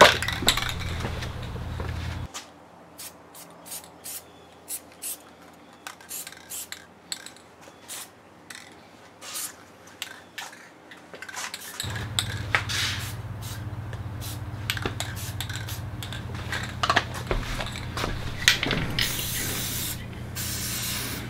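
Aerosol spray paint can hissing in a run of short bursts, then one longer spray of about two seconds near the end, emptying the nozzle.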